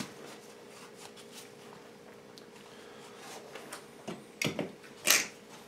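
Gloved hands handling a mink pelt on a wooden stretcher board: faint rustling and small clicks, then three short, louder brushing rubs about four to five seconds in, the last the loudest.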